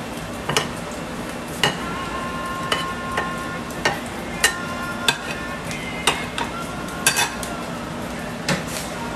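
Metal tongs and a spatula clinking and tapping on a steel flat-top griddle, about fourteen sharp clicks, several with a short metallic ring. Under them runs a steady sizzle of fried rice on the griddle, which is still hot with the heat turned off.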